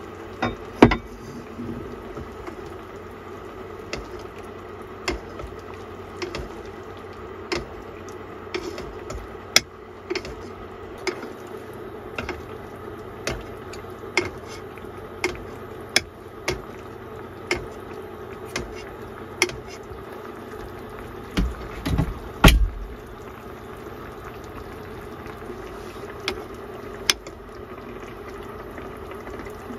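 Fish and daikon simmering in broth in a pot on an induction cooker, bubbling steadily, while a metal spoon clinks against the pot again and again, about once a second, as broth is spooned over the fish. A few heavier knocks come about two-thirds of the way through.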